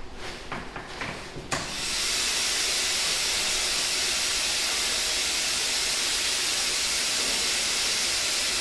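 A few light knocks, then about a second and a half in a dry ice blasting machine's compressed air starts with a sudden loud hiss that holds steady.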